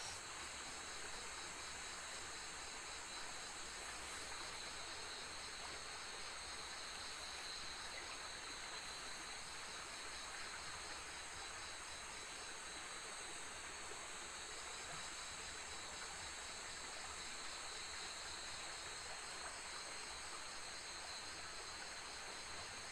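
Night-time insect chorus of crickets and other insects: several high-pitched layers of steady, finely pulsing trills over a faint even hiss.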